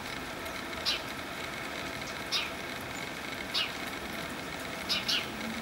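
A small animal's short, high call that drops in pitch, repeated about every second and a half, with two in quick succession near the end, over a steady background hiss.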